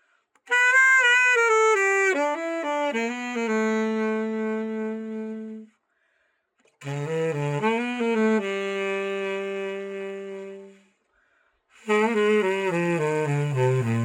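Tenor saxophone, the Yamaha YTS-275 freshly given a full overhaul, played in short solo phrases separated by brief silences. The first is a run coming down to a long held note, the second also ends on a held note, and a third, lower phrase starts near the end.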